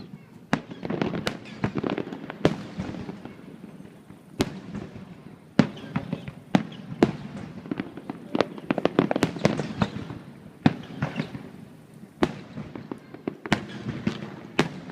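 Fireworks display: sharp bangs about once a second, with dense crackling between them.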